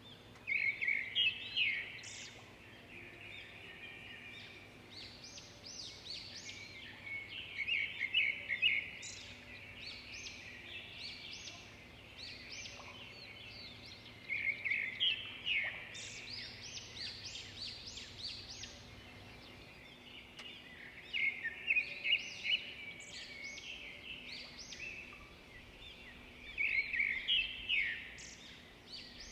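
Birds singing. Loud phrases of quick chirping notes come about every six or seven seconds, with softer chirps between them.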